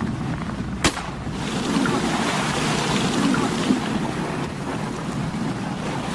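A biopsy dart gun fires once, a single sharp crack about a second in, shooting a dart to take a skin sample from a whale. Behind it runs a steady rush of wind and water noise on a boat at sea.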